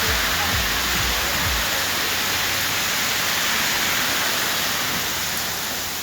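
Heavy downpour: a steady, loud hiss of rain falling on a city street. A low rumble underneath stops about a second and a half in.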